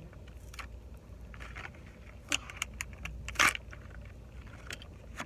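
Toy packaging being peeled and torn open, crinkling, then magnetic fidget rings handled and clicking against each other in short sharp clicks; the loudest rustle comes about three and a half seconds in. A low car-cabin rumble runs underneath.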